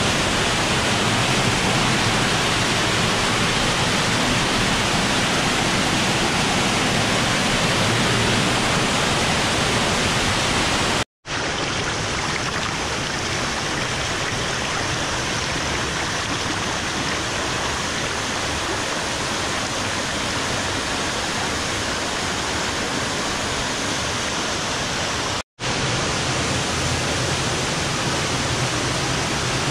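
Waterfall pouring into a pool: a loud, steady rushing noise. It drops out to silence twice for an instant, about eleven seconds in and again some fourteen seconds later.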